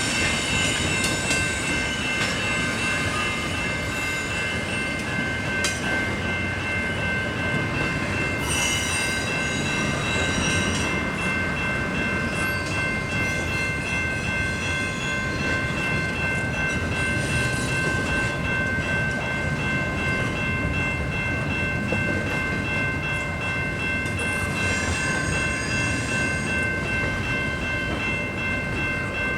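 Canadian Pacific intermodal stack train rolling past with a steady rumble of cars and wheels. Several high-pitched tones are held throughout, and twice a shriller tone rises above them for a couple of seconds.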